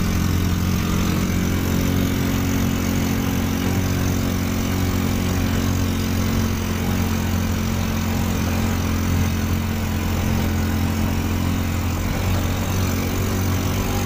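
Motorbike engine of a small converted car running at a steady pace while driving, heard from inside the cab: an even drone with no change in speed.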